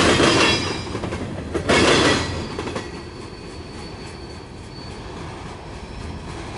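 Freight train's tank cars rolling past close by, their wheels rumbling and clattering on the rails. It is loudest in the first two seconds, then fades as the last car goes by and the end of the train moves away.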